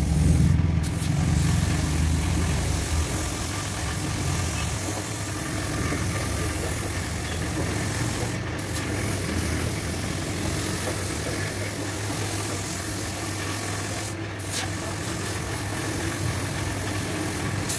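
Compressed-air paint spray gun hissing steadily as green paint is sprayed, the hiss cutting out briefly three times when the trigger is let go. A motor hums low and steady underneath.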